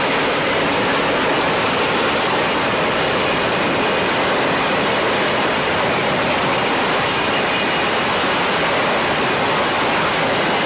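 F-35B jet engine running in a vertical hover: a loud, steady rushing noise that holds an even level throughout.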